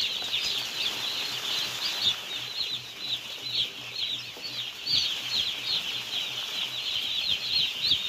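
A large flock of young chicks peeping together: a dense, continuous chorus of short, high, downward-falling peeps.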